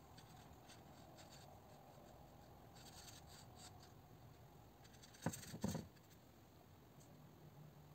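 Faint scratchy swishes of a watercolour brush stroking across textured paper, with a pair of short knocks about five seconds in.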